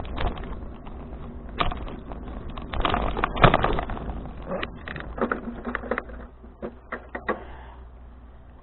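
Bicycle rattling and clicking irregularly while ridden over a rough path, over a low wind rumble; the clatter is densest about three seconds in and thins out near the end.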